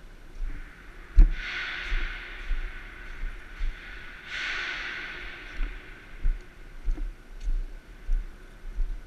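Person climbing down a steel ladder: two long breaths close to the microphone, over a run of dull knocks from boots and hands on the steel rungs, the sharpest about a second in.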